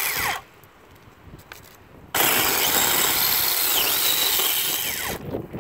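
BNT 4-inch cordless electric mini chainsaw running, stopping about half a second in, then starting again about two seconds in and cutting into a thick tree branch for about three seconds before easing off near the end.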